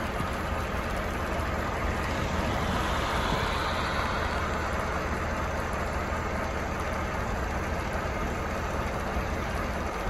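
Steady outdoor rushing noise beside a rural highway, swelling a little about three to four seconds in, with no distinct engine or horn.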